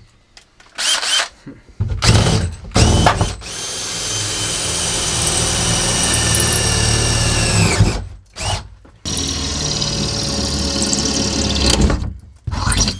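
Makita cordless drill boring through sheetrock and the steel framing behind it. A few short trigger bursts come first, then a long steady run of about four seconds that winds down, a brief pause, and a second steady run of nearly three seconds, with a short burst near the end.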